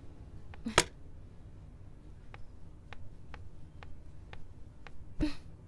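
A door clicks shut about a second in, then footsteps tap across a hard floor, six light steps, followed by a heavier thump near the end.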